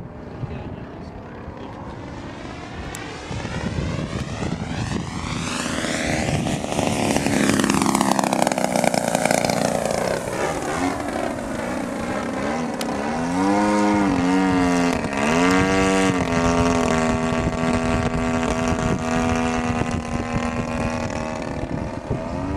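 Single-cylinder two-stroke DLE-55 gas engine turning a 22x8 propeller on a 30% scale Yak 54 model airplane in flight. The sound swells with a sweeping, whooshing shift in tone as the plane passes about seven to ten seconds in, then the engine pitch dips and climbs several times with throttle changes and settles to a steady drone.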